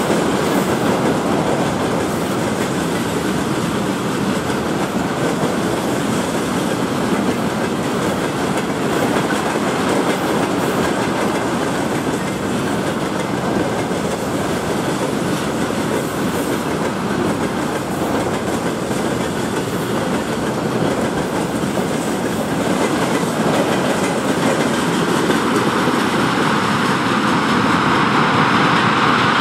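Freight train of railway tank wagons passing close by, its wheels rumbling and clattering steadily over the rails.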